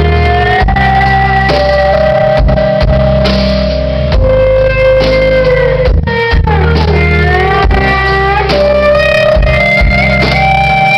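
Live rock band playing an instrumental passage: electric guitar lead with held notes that bend and slide in pitch, over bass guitar.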